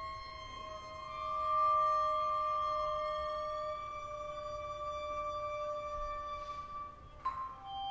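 Contemporary chamber ensemble music: two long, high held notes that slide slightly in pitch, with a single sharp struck note near the end.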